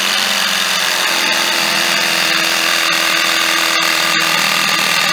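Small portable air compressor running steadily, pumping air into a 3D-printed tank to pressurize it.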